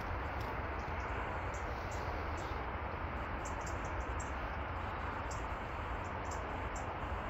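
Steady outdoor noise: wind rumbling on the microphone over a constant hiss, with many brief high chirps scattered throughout, like small birds.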